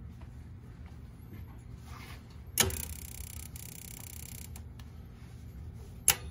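Gas boiler's controls cycling toward main burner ignition: a steady low hum, a sharp click about two and a half seconds in followed by a brief hiss, and another sharp click near the end. No buzz comes from the newly replaced fan center relay.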